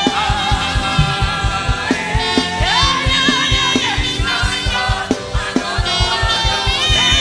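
Upbeat live gospel band music with a fast, steady drum beat and a wavering, sustained melody line over it, with singing.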